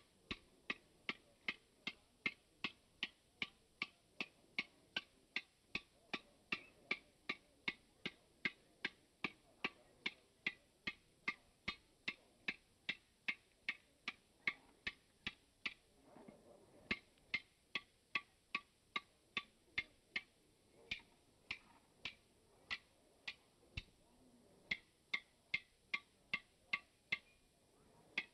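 Blacksmith's hand hammer striking hot iron on an anvil, a steady run of ringing blows about three a second, with two short breaks, about midway and about two-thirds of the way in.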